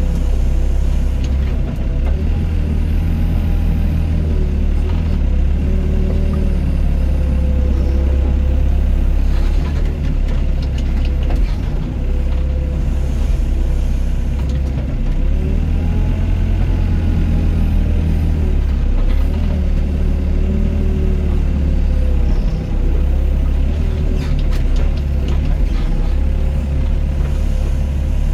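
Diesel engine of a Doosan DX55 mini excavator running steadily under working load, its pitch dipping and rising a few times as the machine digs and loads.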